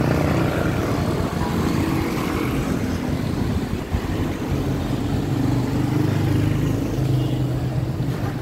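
A road vehicle's engine running nearby, a low hum whose pitch shifts a little and swells and fades in patches.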